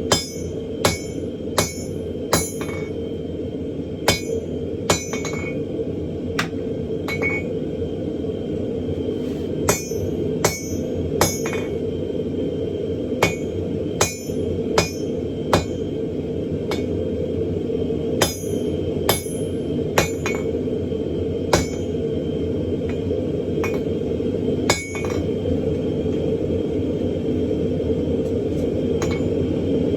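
Hammer blows on hot steel over an anvil, forging railcar spring steel: sharp metallic strikes that ring, coming in short irregular runs with pauses between them. Under the blows runs a steady low roar.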